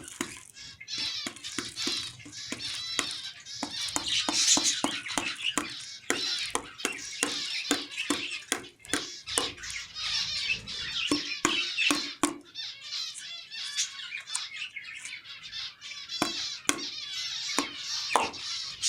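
A colony of caged finches chattering and chirping continuously, with many short sharp calls.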